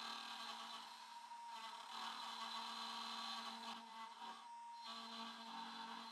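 Hand router with an end mill cutting a slot into a metal blank: a steady motor whine with a cutting hiss, dipping briefly a couple of times as the cutter's load changes.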